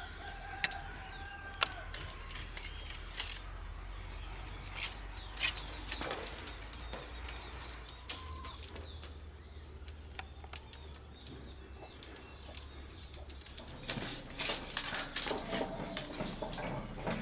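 Thin split-bamboo strips rustling, clicking and scraping against each other as they are woven by hand into a fish trap, with a denser run of clicks near the end.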